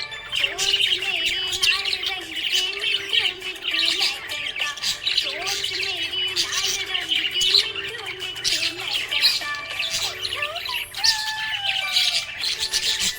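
A flock of budgerigars chirping and squawking continuously in rapid, overlapping calls, over background music with held low notes and a slow melody.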